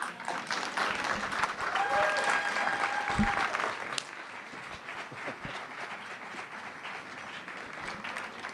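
Audience applauding after a live story, with a long cheer among the clapping about two seconds in. The applause is loudest for the first four seconds, then drops suddenly to quieter, steady clapping.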